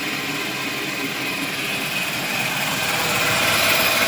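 Electric stand mixer running steadily, its whisk beating eggs, sugar and SP emulsifier toward the pale, thick ribbon stage for sponge cake batter. The motor noise gets louder about three seconds in.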